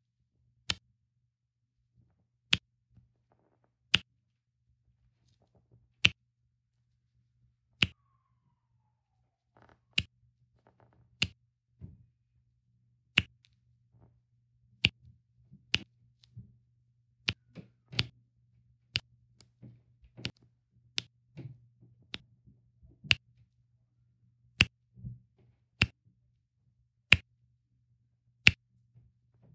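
Round resin diamond-painting drills set with a metal multi-placer tool: a sharp click each time the placer head presses a row of drills onto the sticky canvas, about twenty clicks, one every one to two seconds. Softer scratching and rustling between the clicks in the middle part.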